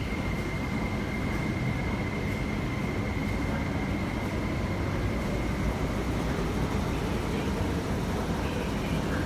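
MTR Tuen Ma Line IKK-Train electric multiple unit running, heard from inside the car: a steady low rumble of the train on the track, with a high, steady whine from the traction equipment that fades out about halfway through.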